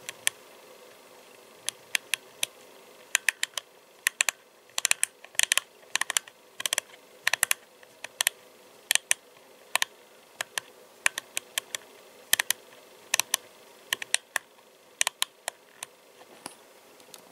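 Sharp plastic clicks of a CRT 279 UV mobile radio's controls, operated over and over at an uneven pace, sometimes in quick pairs, as its menu is stepped through item by item. A faint steady hum runs underneath.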